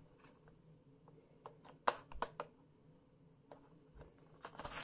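Faint scattered clicks and taps of pliers and a tape-wrapped charger plug working against the lamp's plastic housing as the cord is pulled through a port. The loudest few clicks come about two seconds in.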